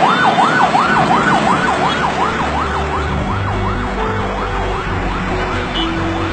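Ambulance siren wailing in quick up-and-down sweeps, about two to three a second, growing fainter over the seconds, over a haze of traffic noise.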